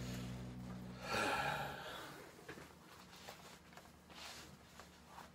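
Electric guitar chord ringing out and fading, cut off about a second in, followed by a short breathy exhale. After that only faint room sound with small scattered clicks.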